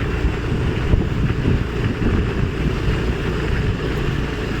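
Wind buffeting the microphone: a loud, steady, low rumble with a rougher hiss above it.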